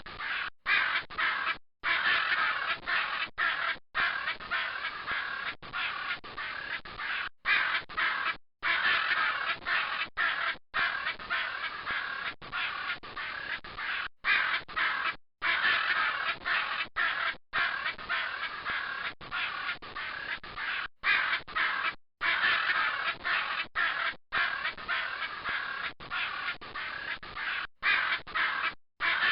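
Macaw squawking: a continuous run of harsh, raspy calls, broken many times by brief abrupt cut-outs to silence.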